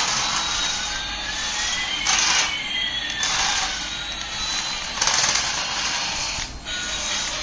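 Battery-powered toy giving off a steady whirring hiss with two thin whining tones, one rising and one falling, and a few brief louder surges.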